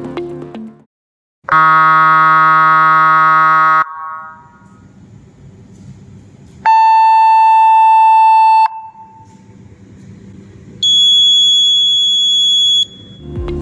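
Electronic scoreboard alarm sounders giving three separate steady blasts of about two seconds each, with pauses between them. The first is a low, buzzy tone, the second a mid-pitched tone and the third a high-pitched tone.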